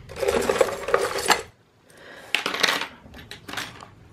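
Metal and beaded costume jewelry jingling and clattering as pieces are rummaged and lifted. There are two bursts of dense clinking, the first lasting about a second and a half and the second a little after two seconds in, followed by a few lighter clicks.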